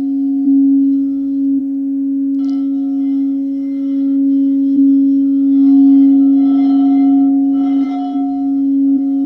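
Quartz crystal singing bowls ringing: a low tone held steadily throughout, with a higher bowl tone joining about two and a half seconds in.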